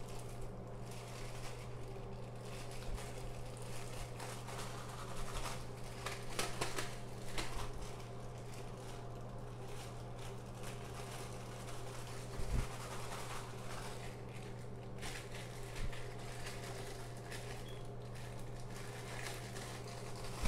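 Zip-top plastic bag holding small glass pipes in rubbing alcohol, crinkling and rustling as it is shaken and handled, with a few soft knocks, over a steady low hum.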